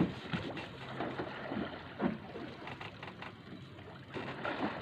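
Fishing boat at sea: a steady low engine hum under irregular water slaps and knocks against the hull.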